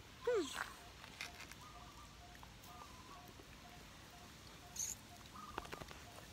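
A cat gives a short, falling mew about a quarter-second in, and there is a brief high squeak later on. Under both, faint high chirps repeat about twice a second.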